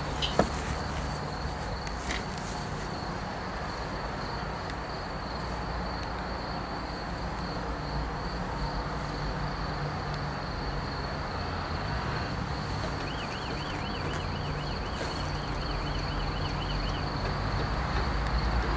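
Outdoor ambience: a steady, high, thin insect-like buzz over a low rumble, with a short warbling trill for a few seconds past the middle and a single small click just after the start.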